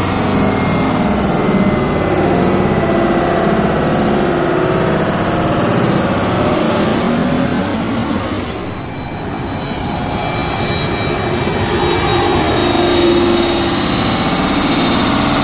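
Jet engines of a twin-engine airliner on final approach with landing gear down, passing low overhead: a loud steady rumble with a thin whine. It dips briefly about nine seconds in, then swells to its loudest a few seconds later as the plane comes over.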